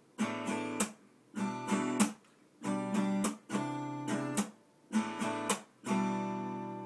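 Acoustic guitar strummed in short bursts of chords, each stopped dead with a moment of silence between, then a last chord left to ring and slowly die away near the end.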